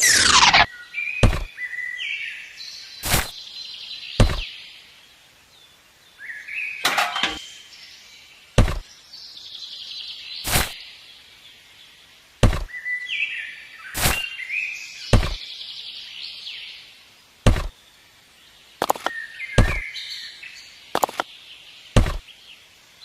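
Sharp knocks or taps every one to two seconds, with high chirping between them.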